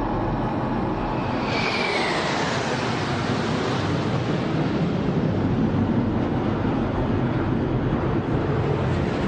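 F-16 fighter jets flying past: a steady, dense jet noise with a high whine that starts about one and a half seconds in and falls in pitch as the jets go by.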